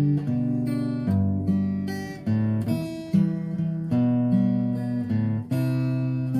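Acoustic guitar playing slow, calm relaxation music: plucked and strummed chords and notes changing about every half second.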